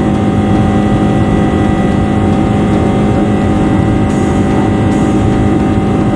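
Inside an Airbus A321 cabin with an emergency exit door open in flight: a loud, steady rush of wind and engine noise, with a constant low hum.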